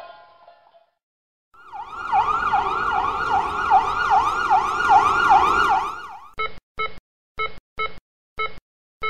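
An electronic emergency siren in a fast yelp, sweeping up and down about two to three times a second for around four seconds. It is followed by a run of short, even-pitched beeps at uneven intervals.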